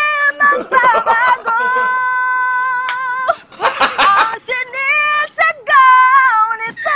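A high-pitched singing voice holding long, wavering notes of a slow ballad, broken about a second in and again about four seconds in by short bursts of laughter.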